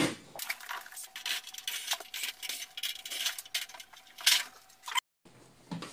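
Hands and a screwdriver working at the aluminium cover plate of an electric heater as it is taken apart: irregular scraping and rubbing with small metal clicks, and two sharper clinks near the end.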